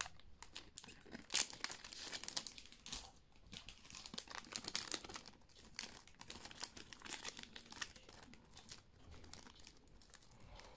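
Foil Pokémon card booster pack crinkling and tearing as it is opened by hand, with many scattered crackles and rustles that thin out near the end.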